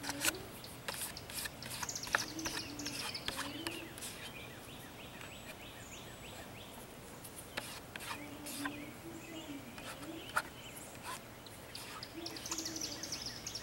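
Songbirds singing outdoors in light rain, with a high trill falling in pitch about two seconds in and again near the end. Scattered sharp ticks run through it.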